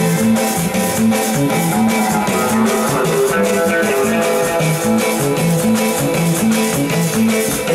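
Live band playing with electric guitar, electric bass and drums keeping a steady beat.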